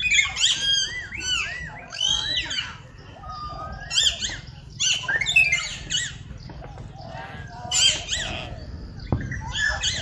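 Birds calling in a busy mix of chirps and squawks: quick arched, rising-and-falling notes in the first few seconds, with louder clusters about four, five and eight seconds in.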